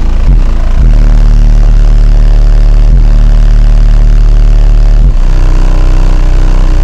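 Car audio subwoofers playing a very loud, sustained deep bass note; the note breaks briefly about five seconds in.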